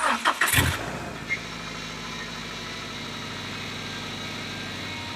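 Turbocharged Subaru Forester XT flat-four engine starting: a brief loud crank-and-catch in the first second, then settling into a steady idle.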